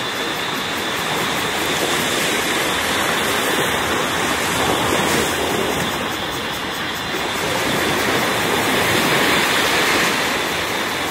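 Small sea waves washing onto a sandy beach: a steady rush of surf that swells gently in level now and then.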